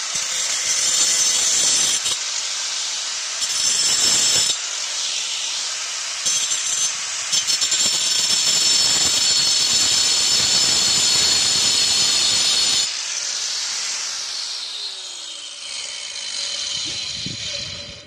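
Angle grinder with a tungsten-grit multipurpose disc cutting through nails in a rotten wood plank, running at full speed with a high whine over several passes and a few brief dips. About thirteen seconds in, the cutting stops and the grinder winds down, its pitch falling away.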